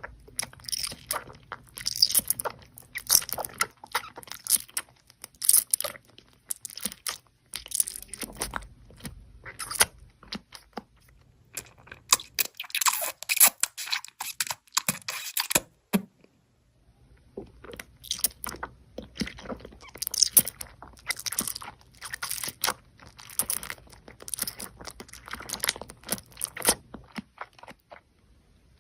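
Crunchy food being bitten and chewed close to the microphone, in a quick run of sharp crackly crunches with short pauses between bites. Near the middle there are a few seconds of steady rustling noise instead of bites.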